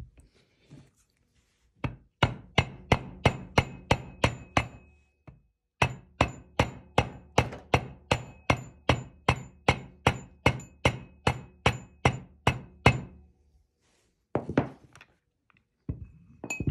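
Mallet blows on the ball screw and steel bearing housing, driving the new angular contact bearings onto the shaft. About three even blows a second, each with a faint metallic ring, in two long runs with a short pause between them, then two single knocks near the end.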